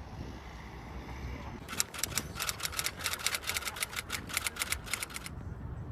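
A fast, even run of sharp clicks, about six a second, starting about two seconds in and stopping abruptly near the end, over a low steady rumble.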